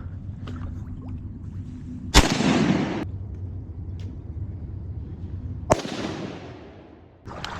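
Two shotgun shots about three and a half seconds apart, each a sharp crack followed by a long fading echo through the flooded timber.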